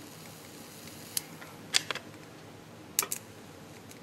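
Resistance soldering on a brass locomotive footboard, heating the joint to make it flow: a few sharp clicks, about a second in, near two seconds and a double click about three seconds in, over a low steady background.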